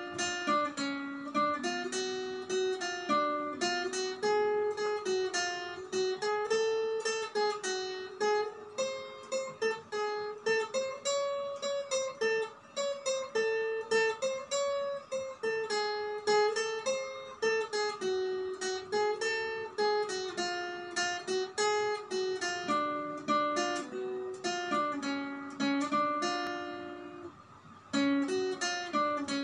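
Acoustic guitar played solo: a melody of quickly plucked notes, several a second, ringing over one another, with a brief drop in level about two seconds before the end before the playing picks up again.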